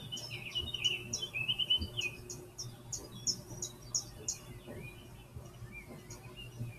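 Birdsong from a YouTube bird video playing through computer speakers: many quick chirps and short high notes, busiest in the first four seconds or so, then sparser.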